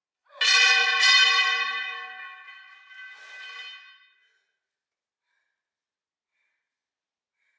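A bell rings with a bright metallic tone, struck twice in quick succession and fading over a couple of seconds, followed by a softer ring about three seconds in.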